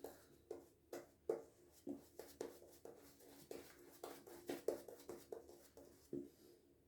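Shaving brush with a 26 mm Timberwolf knot working the soap lather after water is added because the lather had gone very dry: a faint run of short, irregular swishes, several a second, that stops about six seconds in.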